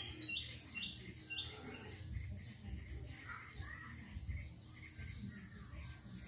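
Outdoor ambience: a steady high-pitched insect drone, with a few short bird chirps in the first second and a half and softer calls about three seconds in.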